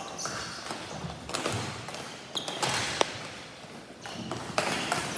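Ball hockey play: a scatter of sharp clacks and thuds from sticks, the plastic ball and the boards, several over a few seconds.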